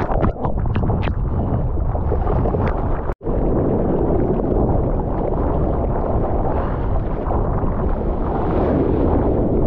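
Rushing seawater and wind buffeting the microphone of a surfer's GoPro, a loud, dense rumble with a few sharp splash taps in the first second. The sound drops out very briefly about three seconds in.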